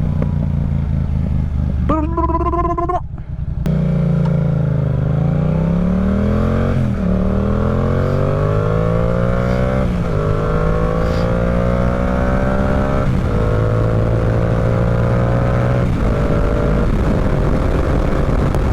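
Yamaha R7 motorcycle engine idling, then pulling away and accelerating up through the gears. The pitch climbs and drops back at each upshift, roughly every three seconds, before settling into a steadier cruise near the end.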